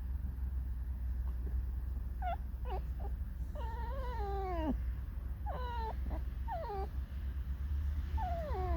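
Pet fox whining in a series of high, wavering calls, a few short ones and then longer ones that slide down in pitch, starting about two seconds in. A steady low rumble runs underneath.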